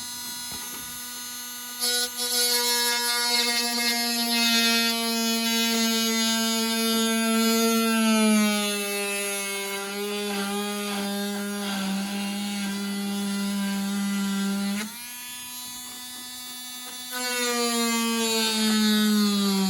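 Dremel rotary tool whining as its bit grinds out the plastic of an old pin hinge. It gets louder as the bit bites in about two seconds in, and its pitch sags under load. It runs more lightly for a couple of seconds after the middle, then bites in and bogs down again near the end.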